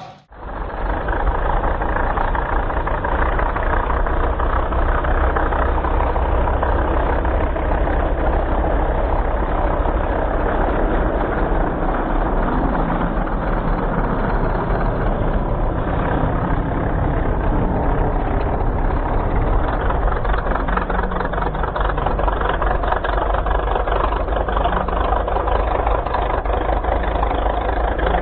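Large-scale RC model aircraft radial engine running at a steady speed, a dense fast pulsing exhaust note.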